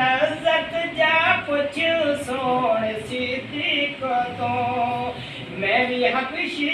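A man's unaccompanied voice chanting a religious recitation in a melodic, drawn-out style, with long held notes and short breaks between phrases.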